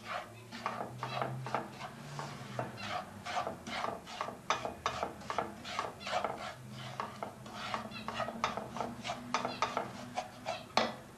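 Wooden spoon stirring and scraping breadcrumbs around a frying pan of hot fat: quick, uneven scraping strokes, a few each second, as the crumbs are toasted brown.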